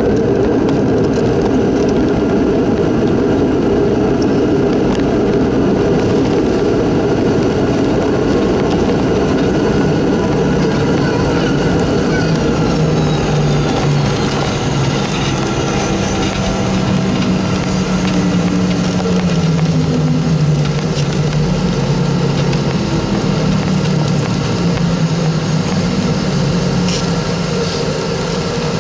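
Cabin noise of a Boeing 717-200 rolling along the runway after landing, heard from a window seat: a steady, loud rumble from its two tail-mounted Rolls-Royce BR715 engines and the roll. The broad roar eases over the first half, and from about halfway a lower engine hum wavering in pitch comes through.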